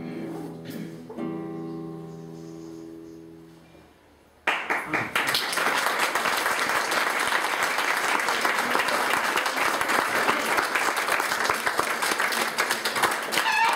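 Classical guitar playing the last notes of a piece, which ring out and fade away over about four seconds. Then an audience breaks into applause all at once and keeps clapping, the applause being the loudest sound.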